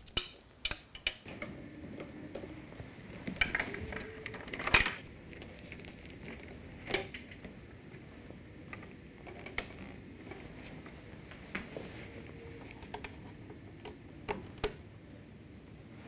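Plastic breathing-circuit connectors and the temperature probe being handled and pushed together by gloved hands. There is a series of sharp clicks and knocks, the loudest about five seconds in, with light rustling between them.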